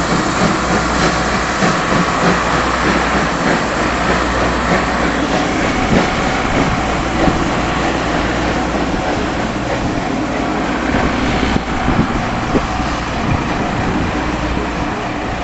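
The SL Ginga train passing close by on a climb: a steady, loud rumble of wheels and running engines, with no distinct steam chuffing, easing slightly near the end.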